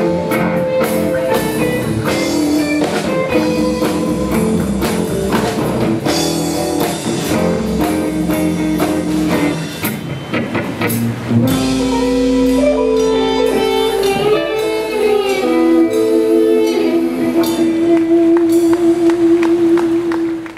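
Live blues band playing: electric guitars, bass, drums and harmonica. About halfway through the steady groove gives way to a drawn-out ending of long held notes, the last one wavering, before the sound cuts off.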